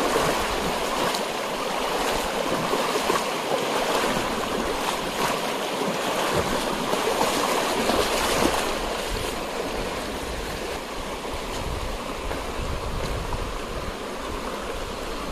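Shallow flowing water splashing and sloshing as a person wades across a stream, the rushing noise easing somewhat in the second half.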